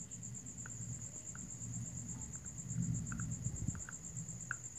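A cricket trilling steadily in a high, evenly pulsing note, over a low background rumble, with a few faint small ticks.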